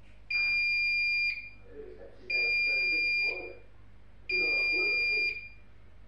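Bosch Serie 4 front-load washing machine's end-of-cycle signal: three identical steady electronic beeps of about a second each, a second apart, showing the wash programme has finished.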